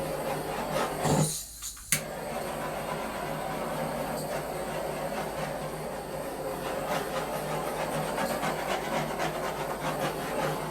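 Handheld torch hissing steadily, lit with a sharp click about two seconds in.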